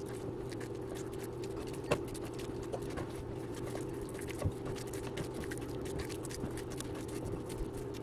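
Food being mashed by hand on a stainless-steel plate: scattered small clicks and squelches, with a louder click about two seconds in and another about four and a half seconds in, over a steady low hum.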